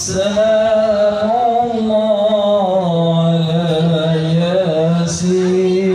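A voice singing an Islamic devotional song (sholawat), holding long notes that bend slowly up and down.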